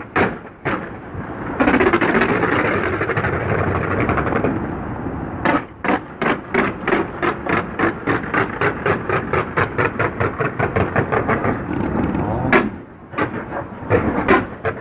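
Fireworks going off: a few sharp bangs, then a couple of seconds of dense crackling, then a rapid volley of reports at about four a second. One big bang follows, and a few more bangs come near the end.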